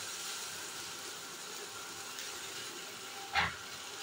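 Homemade butter melting and sizzling in a kadhai as it is cooked down into ghee: a steady frying hiss. A short, sharper knock stands out about three seconds in.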